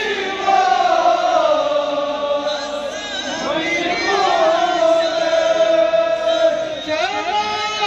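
Men's voices chanting a Kashmiri noha, a Shia lament, together in long, drawn-out notes that rise and fall slowly.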